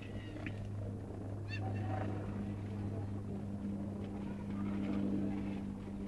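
Young snowshoe cat giving a brief chirping call about a second and a half in, in her baby-alligator-like voice, with a few fainter sounds after it. Under it runs a steady low hum.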